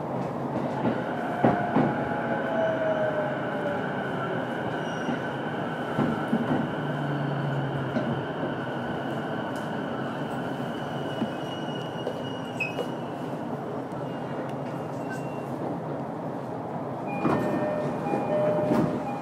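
Running sound inside a JR East E233-1000 series electric train's motor car as it rolls slowly into its terminal stop: steady wheel-on-rail rumble with a steady high whine, a falling tone about two seconds in, and a few clunks near the end as the train comes to rest.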